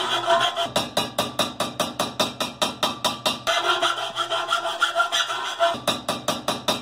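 Hand file rasping back and forth on the end of an exhaust pipe, about four strokes a second. It is bevelling the pipe's edge so it will slide into the mating pipe.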